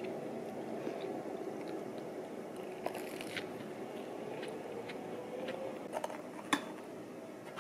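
Chopsticks handling panko-fried hanpen on a wooden plate: a few sharp clicks, the loudest near the end, over a steady low room hum.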